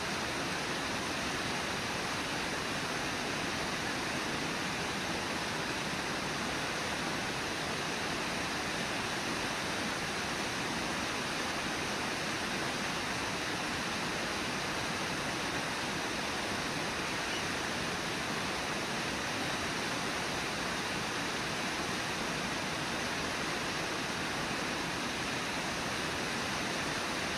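Steady, even rush of the Brooks River running fast over shallow riffles.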